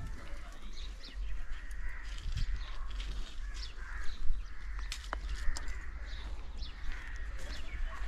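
Crows cawing repeatedly, with other birds calling, over a steady low rumble.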